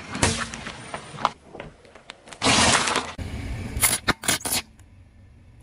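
A car tyre rolling over and crushing small objects, here toothpaste tubes and balloons: scattered crackles, a loud hiss-like burst about two and a half seconds in, then a low rumble under several sharp pops near the end.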